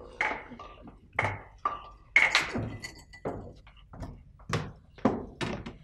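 Glasses and metal trays being handled on a counter: a quick, irregular run of knocks and clinks, one of them ringing briefly about two seconds in.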